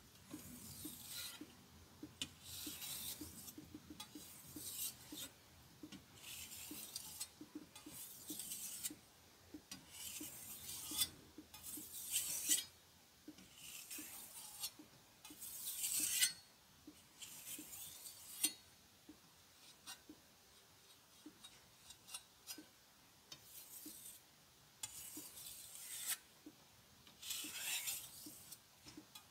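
Chef's knife blade being stroked across a fine polishing whetstone, a scraping hiss repeated about every one to two seconds.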